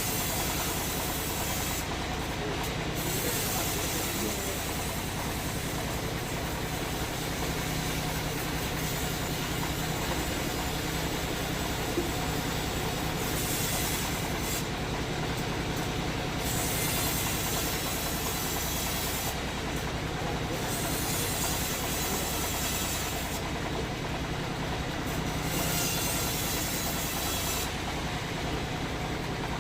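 Sawmill machinery running steadily: a constant low hum under a rushing hiss whose highest part drops away briefly every few seconds.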